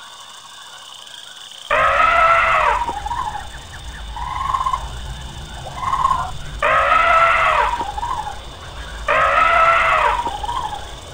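Elephant trumpeting three times, each loud call about a second long and falling away at the end, with quieter calls between them over a low rumble.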